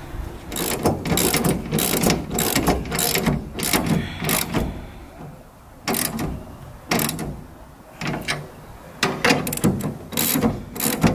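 Ratchet wrench clicking in several bursts with short pauses between, as bolts with washers are tightened down onto the solar rack rails.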